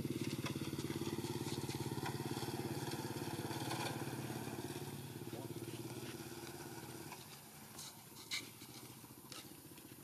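A small engine running with a fast, even pulse, fading away about five to seven seconds in. A sharp click follows about eight seconds in.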